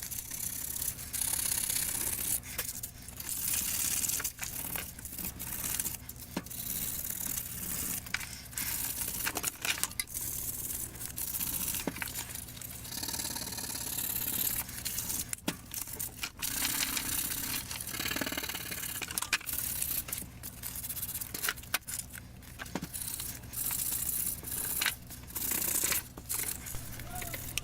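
Draw-knife handles being scraped and sanded in irregular rubbing strokes, with scattered sharp ticks, over a steady low hum.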